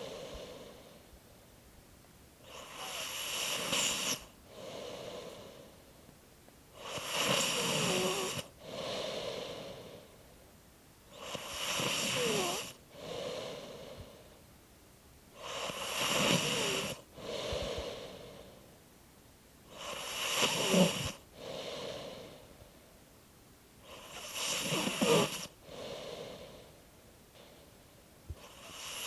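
Slow, steady snoring with six snored breaths, one about every four and a half seconds, each followed by a quieter breath. Quiet gliding squeaks run through the louder snores.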